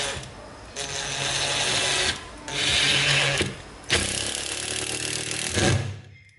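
Makita 12-volt cordless impact driver driving a screw into a wooden board in three runs, each a rapid mechanical rattle that stops and starts again.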